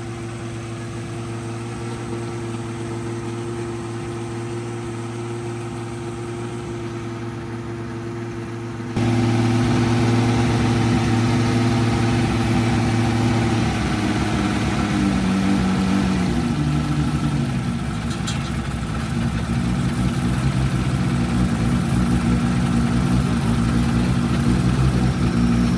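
Freshly built Toyota 2JZ straight-six idling on its first start-up. About nine seconds in it suddenly gets louder, and around fifteen seconds in the idle speed drops a little and then holds steady.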